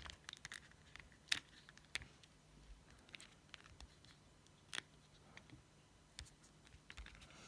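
A few faint, sparse clicks and taps from a Shimano Ultegra ST-R8070 Di2 shift lever as a removed part is pressed back into place by hand, the sharpest click just over a second in.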